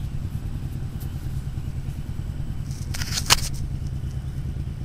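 Fingers crumbling and rubbing a clod of dirt close to the microphone: a short gritty crackle about three seconds in, with one sharp click, over a steady low rumble.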